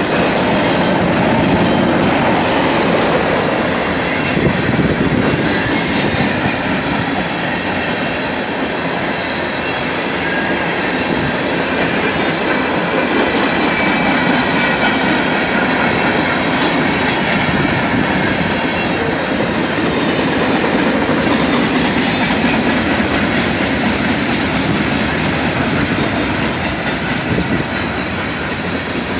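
Freight cars rolling past: a steady rumble of steel wheels on rail, with a steady high-pitched squeal over it.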